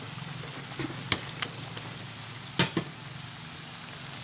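Marinated chicken pieces sizzling in a metal pan as they are stirred with a metal ladle. The ladle clinks against the pan a few times, loudest about two and a half seconds in.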